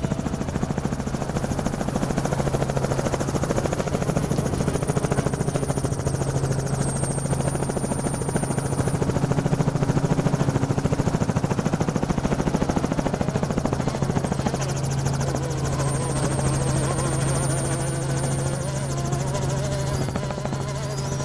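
Steady engine drone with a constant low hum, continuing throughout; faint tones rise and fall in the last few seconds.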